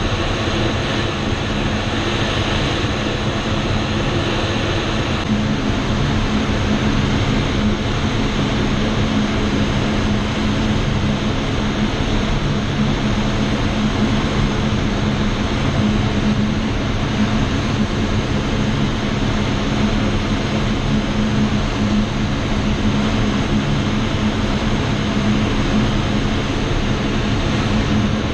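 Steady rush of airflow over the canopy of a Schweizer SGS 1-26E glider in flight, an unpowered sailplane with no engine sound, with a steady low hum beneath it.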